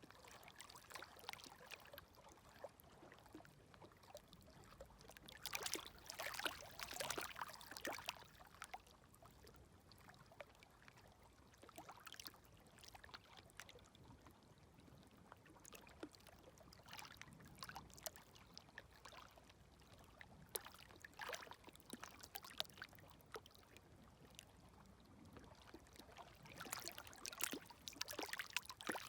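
Faint, gentle small waves lapping at a stony shore, with water trickling and crackling over pebbles. There is a stronger wash about six seconds in and another near the end.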